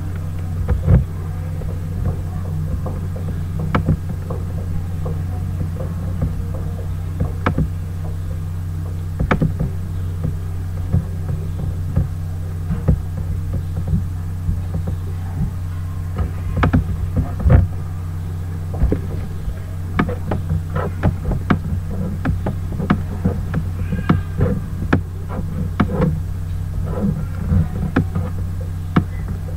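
Steady low hum throughout, with scattered short clicks and taps.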